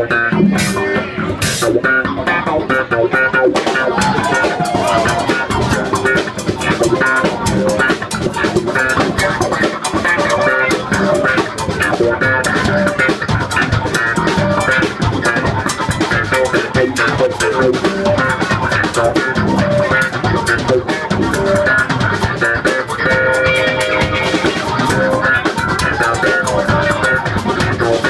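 Live funk jam: slapped electric bass over a drum kit, with electric keyboard, playing steadily throughout.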